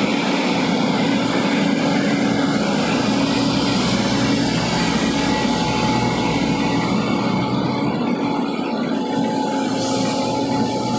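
Steady, loud engine drone from construction machinery: a small portable engine unit running close by, with a JCB excavator working behind it.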